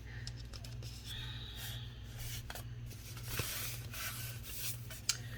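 Soft rubbing and rustling of hands working with hair, with a few light clicks, over a steady low electrical hum.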